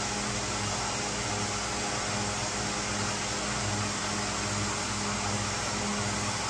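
SYIL X7 CNC mill's spindle running steadily with an end mill milling a metal test part: a constant hum with a steady hiss over it.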